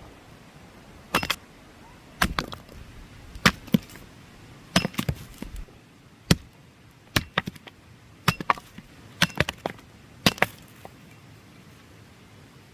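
Bushcraft hand axe chopping wood: a run of sharp, irregular blows, often in quick pairs, about one or two a second.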